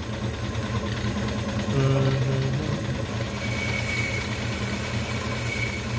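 Small lathe motor running steadily while the cutting tool takes a first cut on a harmonica slide button. A thin high whine from the cut comes in about halfway through.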